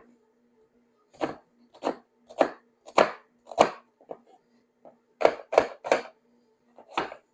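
Kitchen knife chopping through an onion being sliced thin: about a dozen sharp chops at an uneven pace, starting about a second in, with a brief lull in the middle.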